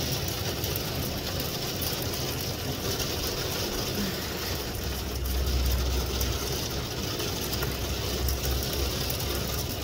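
Heavy downpour of rain mixed with hail, a dense steady hiss full of fine pattering impacts. A low rumble rises under it from about halfway through and eases near the end.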